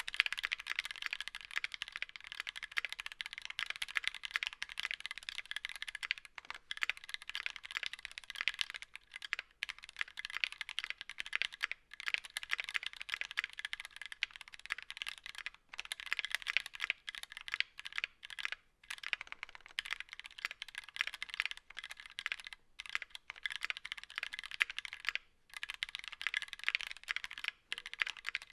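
Steady, fast typing on a mechanical keyboard: Gateron Ink Black v2 linear switches in a Tofu60 case with a brass plate, in their stock state before lubing and filming. The keystrokes run on continuously, with a few brief pauses.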